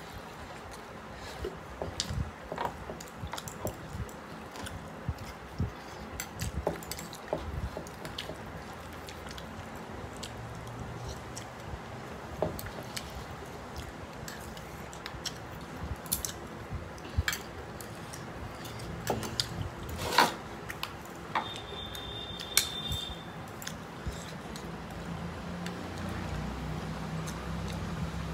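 Eating sounds: mutton biryani eaten by hand, with chewing and many scattered light clinks and taps of plates and dishes.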